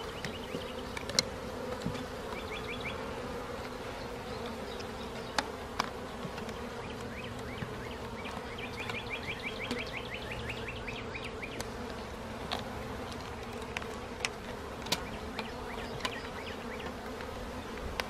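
A mass of honeybees from a cut-out colony buzzing in a steady hum, with scattered small clicks and knocks from handling the frame and comb.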